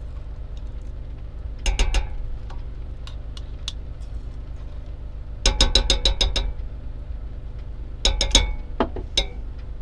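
A metal spoon clinking and scraping against a small glass jar of chicken base paste. It comes in three groups of quick clinks, the longest run about halfway through, with a single tap near the end.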